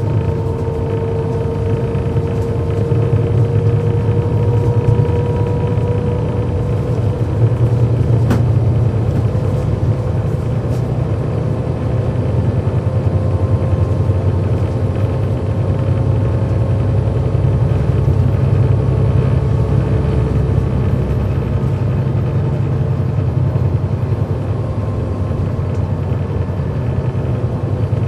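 A 2009 NABI 40-SFW transit bus under way, heard from on board: its Cummins ISL9 diesel runs with a steady low rumble and a whine that climbs slowly in pitch. A single sharp click comes about eight seconds in.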